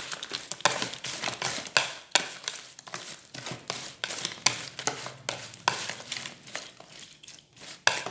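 Chopsticks stirring and tossing flour-coated shrimp in a plastic bowl, with irregular clicks and scrapes against the bowl.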